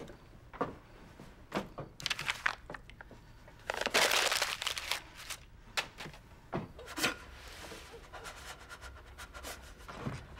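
Footsteps on a hard floor, then the rustling and crumpling of a cloth being handled, loudest for about a second some four seconds in.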